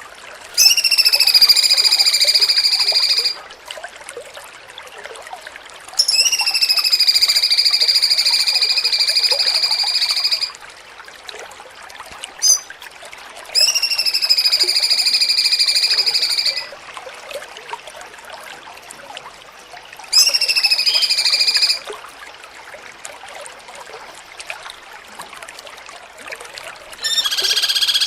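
Cucak cungkok (grey-cheeked bulbul) song in the 'jengking munting' style: four long, steady, high whistles of a few seconds each, each opening with a quick upward slide and separated by pauses of a few seconds. A brief chirp falls in the middle pause, and a fifth call begins near the end.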